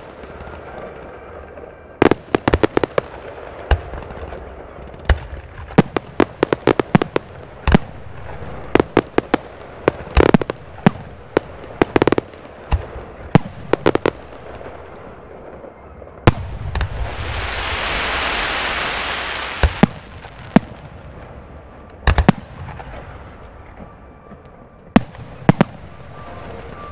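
Aerial fireworks display: shells bursting with sharp bangs, some single and some in rapid clusters. About two-thirds of the way through, a loud hiss swells and fades over about three seconds.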